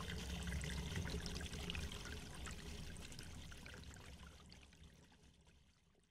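Splashing, pouring water sound effect for a logo animation, a crackly liquid rush that fades out gradually over the last few seconds.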